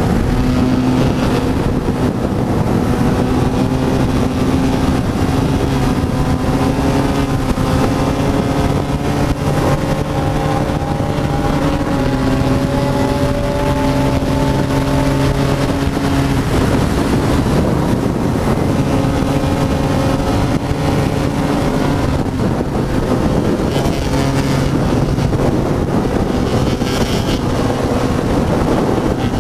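BMW F800GS parallel-twin engine running at steady high revs at highway speed, its note shifting slightly a few times, with heavy wind noise rushing over the microphone.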